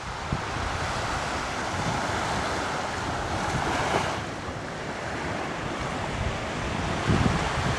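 Small waves breaking and washing up on a sandy beach: a steady surf hiss that swells and then eases about halfway through. Wind buffets the microphone in low gusts near the end.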